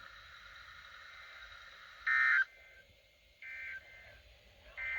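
Three short electronic beeps about a second and a half apart, the first and loudest about two seconds in, heard after a stretch of faint steady radio hiss with a thin whine in it.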